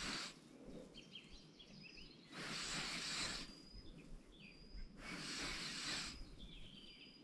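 Spinning reel cranked in short spurts of about a second, three times roughly two and a half seconds apart: the pauses and turns of a stepped jig retrieve across the bottom. Birds chirp faintly in the gaps.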